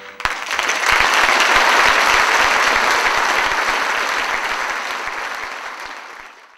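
Theatre audience applauding, starting about half a second in, right after the choir's final note, then fading out and cutting off near the end.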